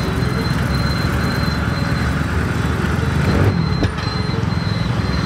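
Heavy multi-axle mobile crane's engine running with a deep, steady throb as the crane drives slowly past on the road, with a brief swell in level about three and a half seconds in.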